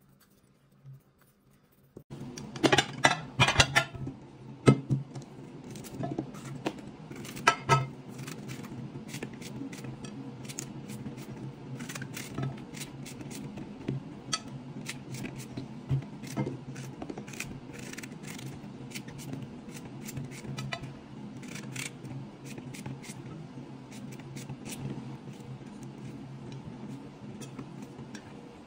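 Vegetable prep over a glass baking dish: chunks of courgette and mushroom knocking into the dish and a small knife cutting mushrooms. After a near-silent first couple of seconds, there is a quick run of loud clicks and knocks, then scattered lighter clicks over a steady low hum.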